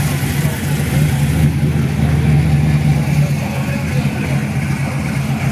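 Classic muscle car's engine burbling at low speed as the car rolls slowly past, a deep steady exhaust note that swells a little about two seconds in.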